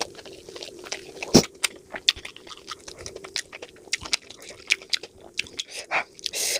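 Close-miked chewing and biting of momos and masala Maggi noodles: wet, irregular smacks and clicks of a mouth eating, with one sharper bite about a second and a half in.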